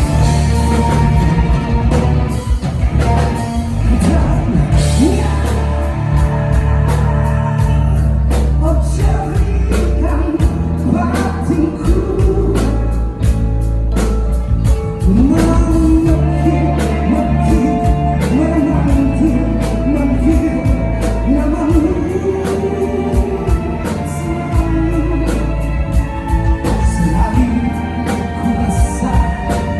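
Live rock band with drum kit, bass and guitar playing, with a lead voice singing long sliding, wavering notes over it.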